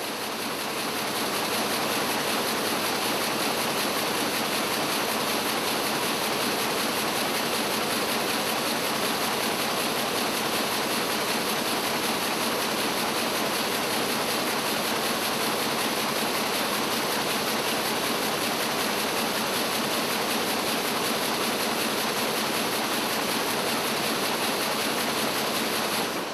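A loud, steady, even rushing noise with no separate knocks or tones in it, swelling up over the first second or two and then holding unchanged.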